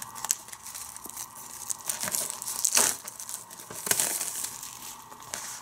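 Clear plastic shrink wrap being torn and peeled off a DVD box set, crinkling and crackling irregularly, with the loudest rips just under three seconds in and again about four seconds in.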